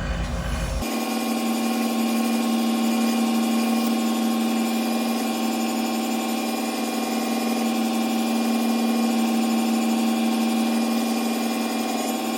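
Belt grinder running at a turned-down speed with a Scotch-Brite belt, a steady hum with a grinding hiss. The sound changes abruptly about a second in.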